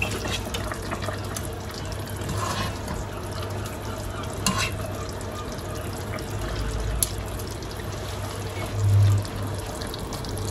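Curry simmering and bubbling in a steel pot on a gas hob, with metal tongs clicking against the pot a couple of times as fried fish pieces are lowered in. There is a short low thump near the end.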